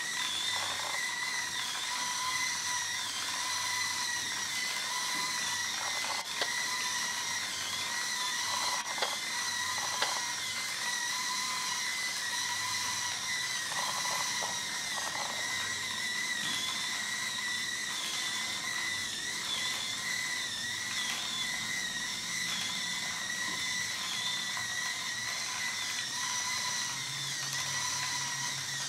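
Small electric gear motors of a 3D-printed Klann-linkage walking robot running steadily, a high even whine through its plastic gear train, with a few light knocks from the legs.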